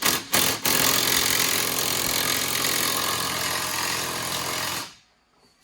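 A power tool: a few short blips, then a steady run of about four seconds that cuts off suddenly.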